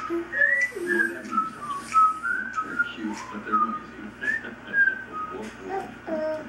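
Someone whistling a tune: a run of short notes that slide up and down in pitch.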